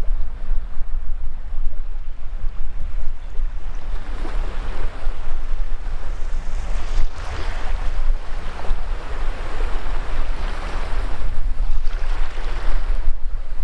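Shallow surf washing up a sandy beach, its hiss swelling about four seconds in and again through the second half, over a heavy wind rumble on the microphone.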